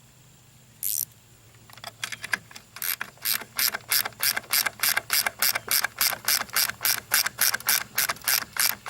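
Hand ratchet wrench clicking in quick, even strokes, about four clicks a second, as a self-locking nut is run down a bolt. A brief scrape comes about a second in.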